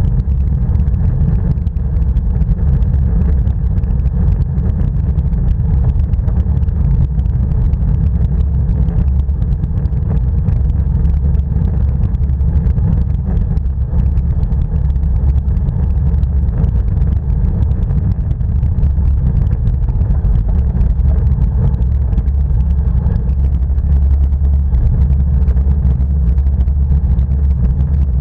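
Wind buffeting the microphone of a bike-mounted action camera while riding: a steady, loud low rumble with no let-up.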